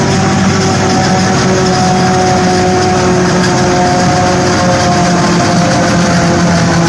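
Napier grass combine harvester running loud and steady, its engine tone drifting slightly in pitch.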